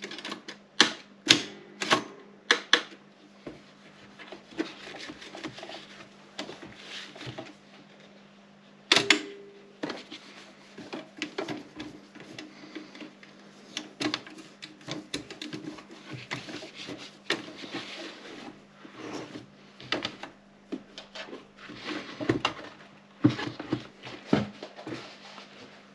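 Erika 30 manual typewriter being typed on: irregular runs of sharp key clacks, thinning to softer, scattered sounds for a few seconds before one heavy clack about nine seconds in, then steady typing again. A faint steady low hum lies under it all.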